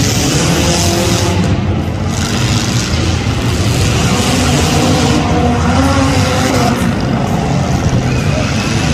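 Engines of several demolition derby cars running and revving, with a steady dense roar and a pitch that rises and falls through the middle stretch.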